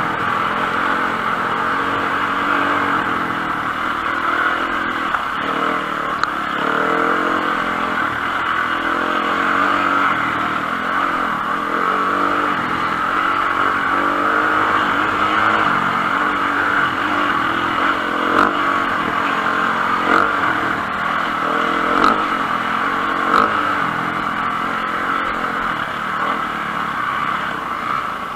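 Enduro motorcycle engine running under way, its revs rising and falling over and over as the bike is ridden off-road, with a few sharp knocks in the second half.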